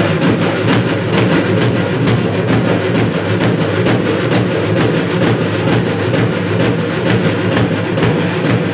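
Loud, fast drumming in a steady rhythm, the traditional drum accompaniment to a Somana Kunitha masked Soma dance.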